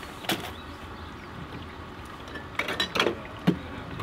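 Drink containers being handled and set down: scattered light clinks and knocks, one shortly after the start and a quick cluster near the end.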